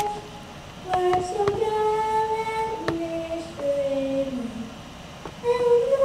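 A woman singing the national anthem solo, holding long notes, with short breaks between phrases shortly after the start and again near the end.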